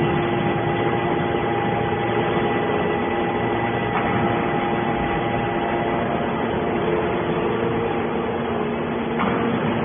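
Hydraulic can baler's motor and pump running with a steady hum and several steady whining tones.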